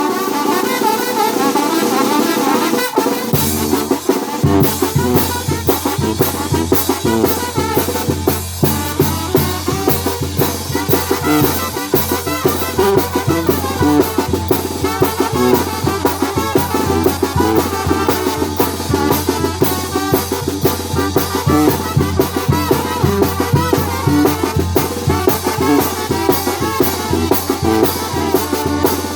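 Mexican banda music: brass with trumpets over a steady drum beat. The low bass comes in about three to four seconds in.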